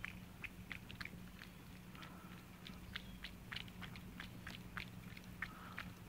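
Two cats eating wet cat food in gravy from bowls: quick, irregular wet chewing and lapping clicks, about four a second, over a faint steady low hum.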